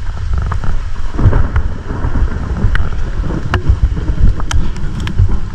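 Rain and storm wind buffeting the microphone in a dense low rumble, with a few sharp clicks scattered through it.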